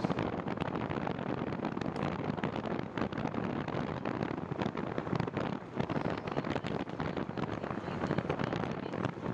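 Wind buffeting a microphone while cycling: a steady rough rush with frequent crackling gusts.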